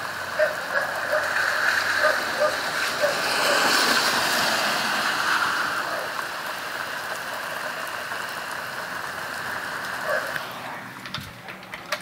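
Steady rain falling, with a pit bull barking: a run of short barks over the first three seconds and another bark about ten seconds in. The sound fades away near the end.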